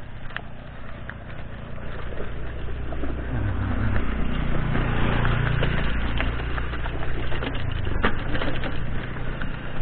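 A motor scooter passing close by, its engine hum swelling and fading in the middle, over the steady crunch and rattle of a bicycle's tyres rolling down a rocky dirt track.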